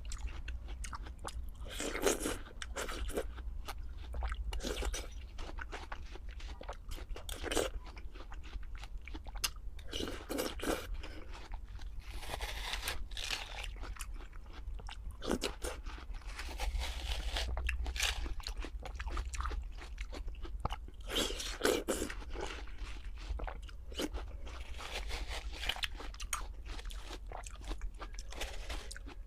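Close-miked eating: repeated crunchy bites and chewing, coming in bursts every second or few.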